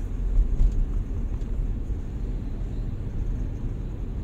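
Steady low rumble of a car driving at road speed, its engine and tyre noise heard from inside the cabin.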